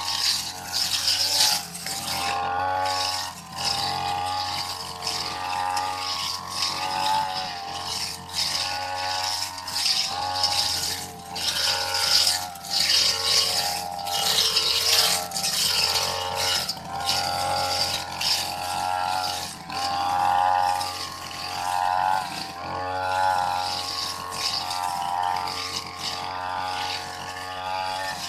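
Petrol backpack brush cutter with a metal blade cutting tall grass. The engine note rises and falls in swells every second or two as the blade sweeps through the grass, over a steady hiss of cut grass.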